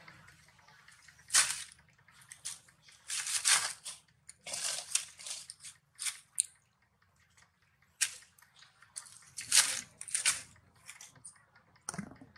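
Dry fallen leaves crunching and rustling in short, irregular bursts, the loudest about a second and a half in, three and a half seconds in, and near the ten-second mark.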